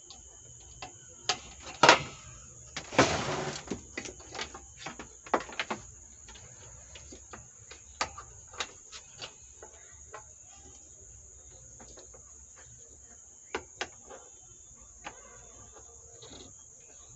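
Handling noise of hands and parts inside an open power amplifier chassis as an amplifier module is fitted back in: a sharp knock about two seconds in, a short scrape just after three seconds, then scattered lighter clicks.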